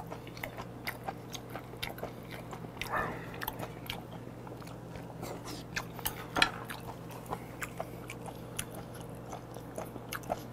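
Close-miked wet chewing of a mouthful of raw beef and chopped octopus (tangtangi), with many small mouth clicks and a couple of louder wet sounds about three and six seconds in.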